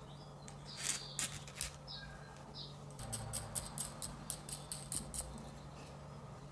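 Small metal parts being handled: a few clicks about a second in, then a quick run of sharp metallic clicks, about five a second, for a couple of seconds, as a nut is worked along a threaded steel rod.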